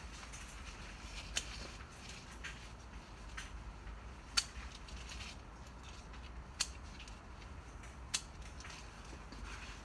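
Tomato picking: faint rustling of the vines and fruit being handled, with four sharp clicks from the stems being cut or pulled off, the loudest about halfway through.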